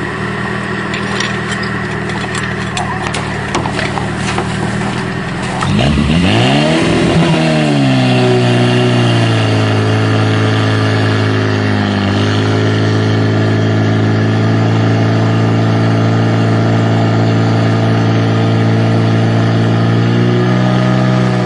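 Portable fire pump's engine idling, with a few sharp knocks over it, then revved up about six seconds in and held at a loud, steady high speed to pump water through the attack hoses. It dips briefly about halfway and begins to drop at the very end.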